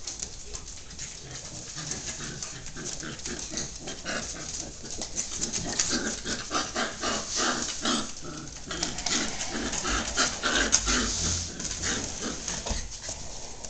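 Border collie puppies and an older dog play-fighting: quick growls and grunts over scuffling on a wooden floor, busiest from about four to twelve seconds in.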